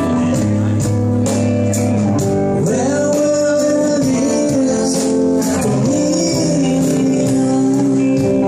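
Live rock band playing a slow ballad: a male lead vocal sung over electric guitar, bass guitar and drums with cymbals.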